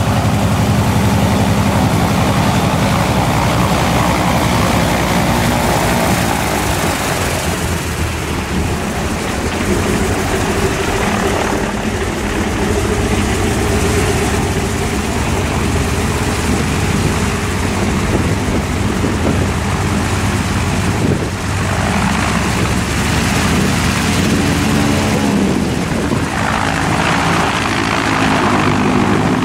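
Antonov An-2's nine-cylinder Shvetsov ASh-62 radial engine running on the ground with the propeller turning, on its first run after being installed. It runs steadily, and its note shifts a few times.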